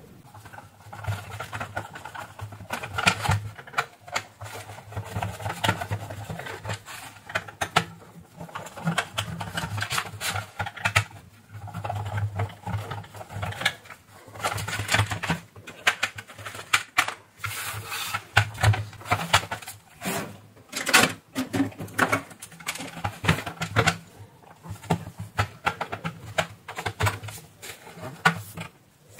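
T10 Torx screwdriver turning out the screws from the plastic case of a Sagemcom router, with irregular clicks and rattles as the plastic housing is handled and turned over.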